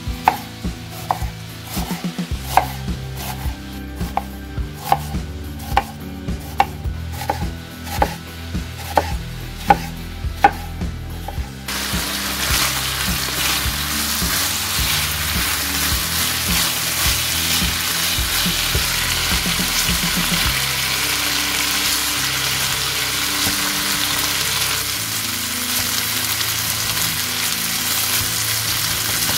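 Kitchen knife chopping an onion on a wooden cutting board, steady strokes about one and a half a second. About twelve seconds in it switches to sliced sausages sizzling steadily in hot oil in a frying pan, stirred with a wooden spatula.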